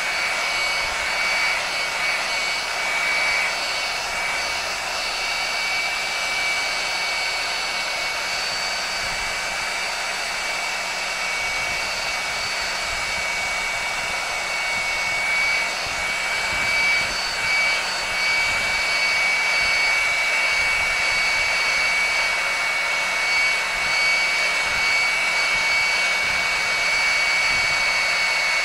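Heat gun blowing hot air steadily, its fan motor giving a high whine over the rush of air, while it shrinks non-slip heat shrink tubing onto a handle. It gets a little louder about halfway through.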